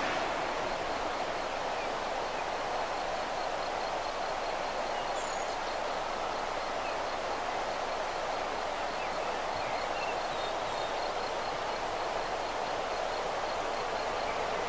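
Steady outdoor background hiss with a few faint bird chirps, while an ÖBB Cityjet electric train approaches from far off; its sound is still faint and only starts to grow near the end.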